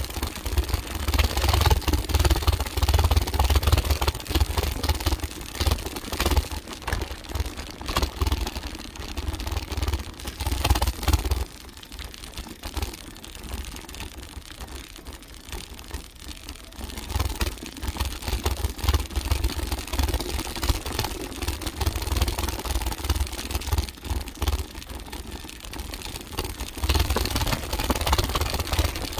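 Mountain bike riding a rough dirt trail, heard from a handlebar-mounted phone: heavy wind buffeting on the microphone, with the clattering rattle of the bike and its mount over bumps. The wind rumble falls away for several seconds midway, then returns.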